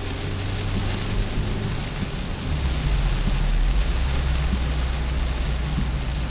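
Rain hitting a car's windscreen and roof, heard from inside the cabin, over the low hum of the engine and tyres. The low hum shifts lower and gets louder about two and a half seconds in.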